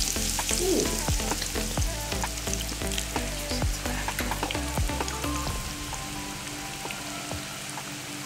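Breadcrumbed Scotch eggs deep-frying in hot oil in a wire basket, just lowered in: a vigorous, steady sizzle and bubbling with many small crackles. It eases off somewhat after about five seconds.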